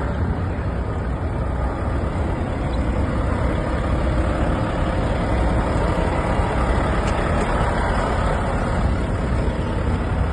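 A diesel truck engine idling, a steady low rumble.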